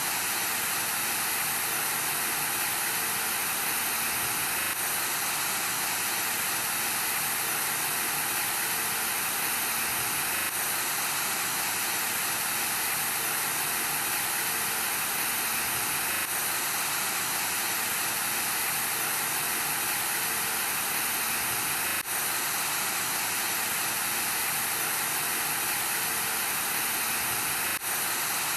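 Analogue television static: a steady, loud hiss of white noise, with two brief dips, one about two-thirds of the way through and one near the end.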